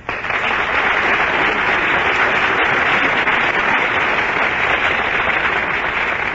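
Studio audience applauding steadily at the end of a musical number in a live radio broadcast.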